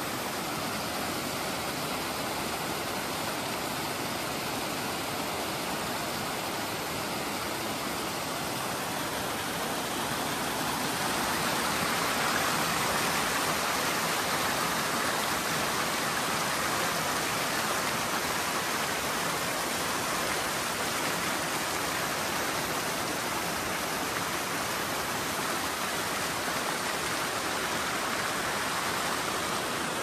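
Steady rush of water tumbling down a mountain stream, getting slightly louder about ten seconds in.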